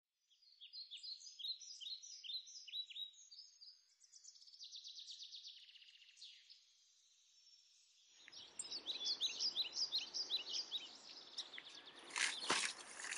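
Small birds chirping over and over, with a fast trill in the middle. About two-thirds of the way in, a steady rushing noise comes in beneath the birdsong, and there is a single sharp click near the end.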